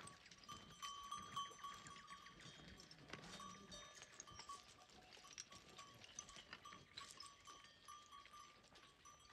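Faint, intermittent ringing of livestock bells on a flock of sheep and goats on the move, with light clicking throughout and a bleat about three seconds in.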